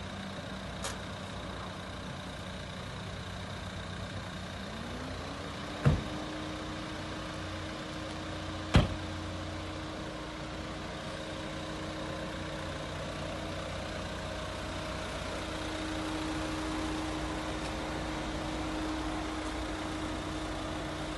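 A motor vehicle's engine running at idle. About five seconds in its pitch rises and then holds steady at the higher speed. Two sharp knocks, the loudest sounds here, come about six and nine seconds in.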